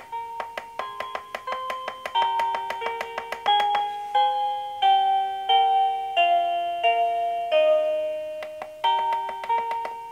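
Skip Hop Moonlight & Melodies elephant soother playing a lullaby melody through its built-in speakers: bell-like chime notes that ring and fade, quicker for the first few seconds, then about one note every two-thirds of a second.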